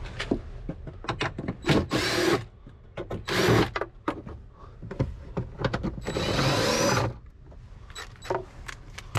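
Small power driver spinning in three short spurts, the last and longest about a second, its whine rising as it spins up while backing out 8 mm screws, with clicks and knocks of the tool and screws between spurts.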